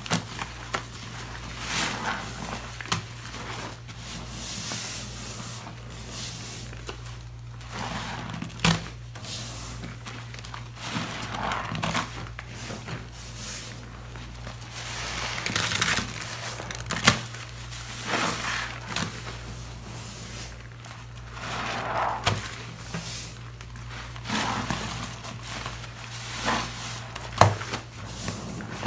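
Foam sponges squeezed and kneaded by gloved hands in a basin of sudsy liquid: wet squelching and crackling foam in irregular bursts, with a few sharp squishy pops. A steady low hum runs underneath.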